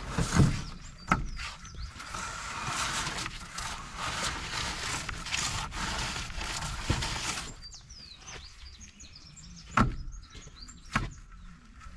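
Rough scraping strokes of a plastering tool worked over wall plaster, with a few knocks. The scraping stops about seven seconds in, leaving birds chirping and two more sharp knocks.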